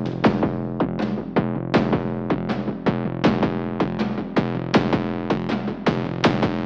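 Background music: electronic backing track with a steady drum-machine beat over sustained synthesizer chords.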